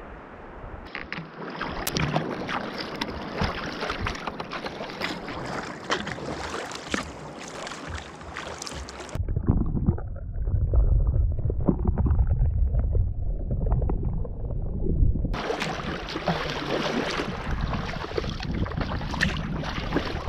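Sea-kayak paddling on open water: paddle splashes and water slapping the hull, with small sharp knocks. About nine seconds in, the sound turns muffled and low, as heard by a camera held underwater. About six seconds later the surface splashing returns.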